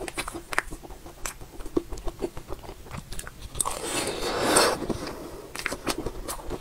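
Close-miked eating sounds from a strawberry-shaped mousse cake: soft wet mouth clicks and smacks, with a longer wet noise about four seconds in as a spoonful of cream and jam goes into the mouth.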